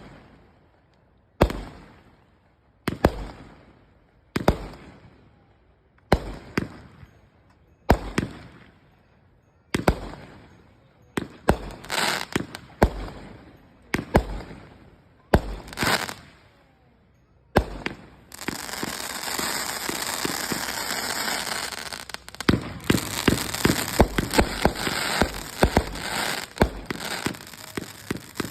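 Fireworks going off: single loud bangs about every second and a half, each echoing away, then a dense stretch of crackling with rapid pops for the last part.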